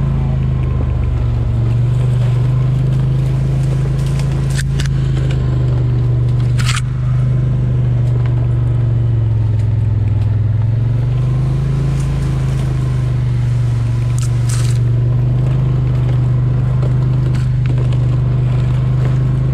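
Quad ATV engine running steadily as it rides slowly along a trail, its note dipping briefly about halfway through and then coming back up. A few short scrapes of brush against the machine cut in over the engine.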